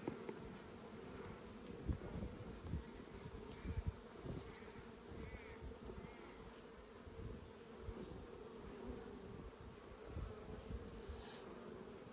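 Honeybees buzzing around an opened nucleus hive, a steady hum, with occasional low bumps.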